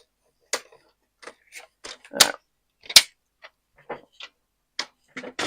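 Cardstock and a paper trimmer being handled on a work table: a string of light clicks and taps, with two sharper clicks about two and three seconds in.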